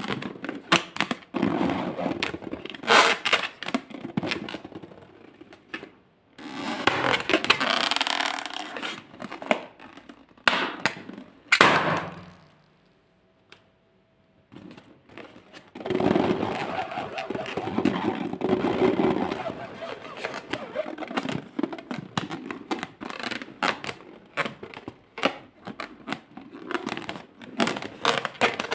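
Close-up slime-making sounds: scraping, clicks and crackles from handling and mixing the ingredients, with a pause of about two seconds near the middle.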